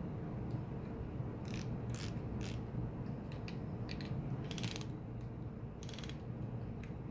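6000-size CNC aluminium spinning reel being worked by hand, its mechanism giving a few sharp single clicks and then two short runs of rapid ratcheting clicks, about four and a half and six seconds in.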